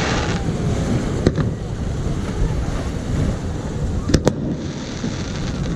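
Fireworks going off: a sharp bang about a second in and a quick pair of bangs about four seconds in, over a steady low rumble.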